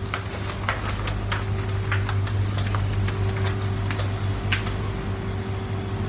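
Supermarket background noise: a steady low hum with scattered light clicks and taps.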